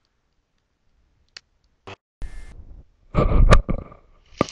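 Computer mouse clicks, a few single clicks, followed after about two seconds by short sound effects from the educational map software: a brief hiss, then a louder sound a little after three seconds. This comes as the miles bar is clicked and reset.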